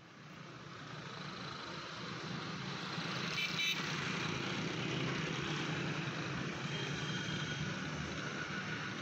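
Steady running noise of motor vehicles, with a low hum throughout. A brief high-pitched sound comes about three and a half seconds in.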